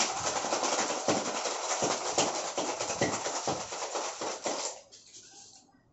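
Ice rattling hard inside a stainless steel cocktail shaker during a vigorous shake: a fast, continuous clatter that stops a little before the end.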